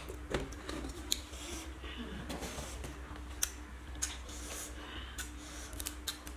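Cooked crab shells clicking and cracking as fingers pick through a plate of small crabs and break one open, with scattered sharp crunches and a few louder cracks.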